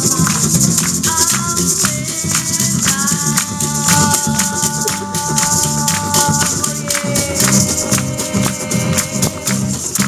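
Polynesian dance music: fast, driving percussion with rattling shakers under long held melodic notes.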